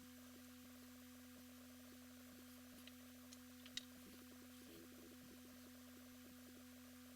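Near silence with a faint steady hum, broken by a few small clicks about three to four seconds in, the last one the loudest.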